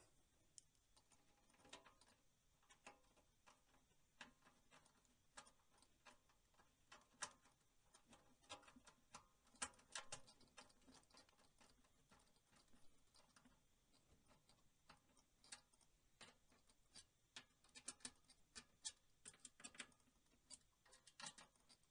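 Faint, irregular small clicks and ticks: a screwdriver driving the screws that hold a power supply unit into a steel computer case.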